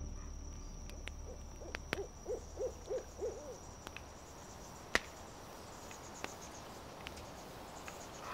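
An owl hooting at night, a run of about six hoots within two seconds, with sharp pops from a campfire and one louder crack about five seconds in.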